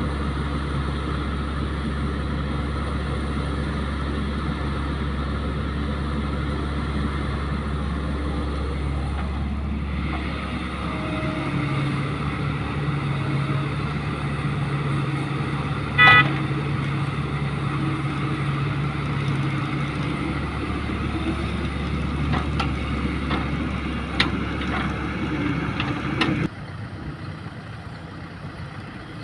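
Caterpillar hydraulic excavator's diesel engine running steadily, then working harder from about ten seconds in as the arm swings and dumps soil. A short horn beep sounds about halfway through, and a few sharp knocks follow. Near the end the sound drops abruptly to a quieter engine.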